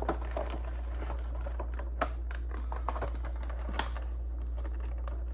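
Packaging being handled as a boxed HO-scale model locomotive is taken out: scattered light clicks, taps and rustles of cardboard and plastic, with sharper ticks about two and four seconds in. A steady low hum sits underneath.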